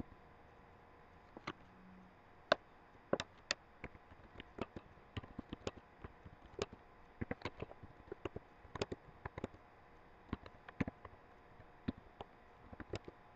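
Keystrokes on a computer keyboard as a line of text is typed, in quick irregular clicks that start about a second and a half in, over a faint steady hum.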